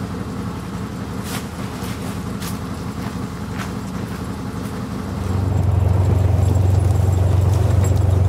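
Side-by-side utility vehicle's engine running at a steady idle, with a few light clicks over it. About five seconds in it becomes much louder and deeper as the vehicle is driven.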